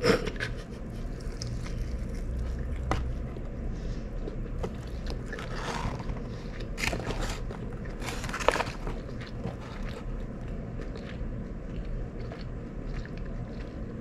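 Fried chicken being eaten out of a paper carton: the carton rustles and crinkles a few times as pieces are torn off, with bites and chewing in between.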